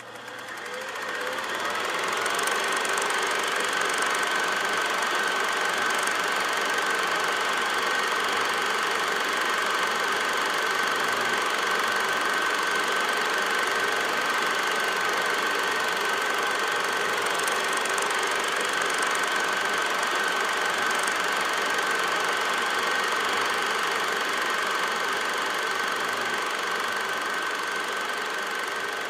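A steady machine-like drone with a constant high hum running through it, fading in over the first couple of seconds.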